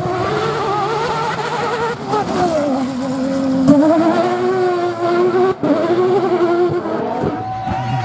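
Rally car engine revving hard under load, its pitch climbing and then dropping again at each gear change. The sound breaks off suddenly a couple of times and starts again on a new pass.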